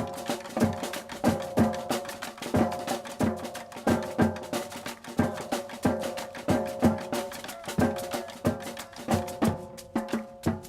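Marching drumline playing a cadence: rapid snare and tenor drum strokes over bass drums keeping a steady beat, about one and a half strong low hits a second.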